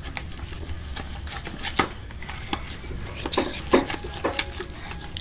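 A spoon stirring freshly forming slime of white glue and liquid detergent on a plate, making irregular clicks and scrapes.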